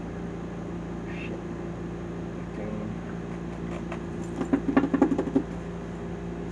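A steady low hum of machinery runs throughout. About four and a half seconds in, a short, loud run of pitched vocal sounds lasts about a second.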